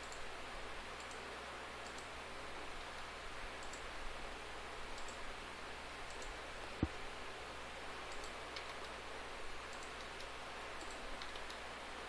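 Faint, scattered clicks of a computer mouse and keyboard over a steady background hiss, with one sharper click about seven seconds in.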